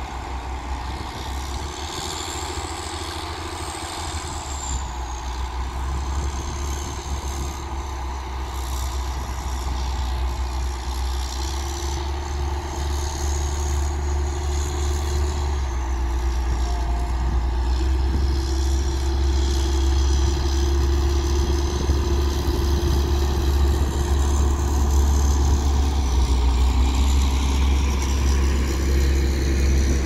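Diesel engine of heavy road-construction machinery running steadily with a deep hum, growing gradually louder.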